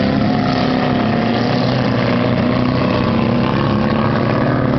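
Several dirt-track race cars' engines running hard together as a steady, loud drone, their pitches drifting up and down slightly as the cars power around the oval.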